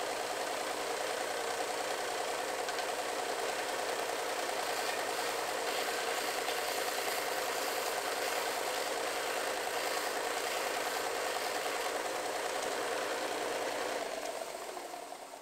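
Bench belt sander running steadily while a 1¼-inch wooden dowel is held against the moving belt and sanded flat along one side. The motor winds down near the end as the sander is switched off.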